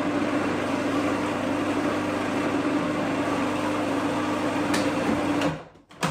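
Food processor motor running steadily while blending oil into smoked cod's roe for taramasalata, then switched off about five and a half seconds in, followed by a single click.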